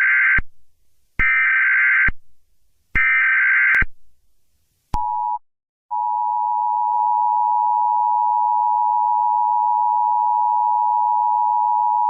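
Emergency Alert System tones: three short, loud bursts of buzzing SAME header data, then the steady two-tone EAS attention signal, which starts, breaks off briefly and resumes about halfway through.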